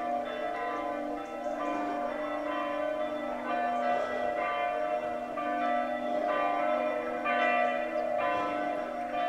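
Church bells ringing in the tower, one stroke after another, each stroke's tone hanging on and overlapping the next.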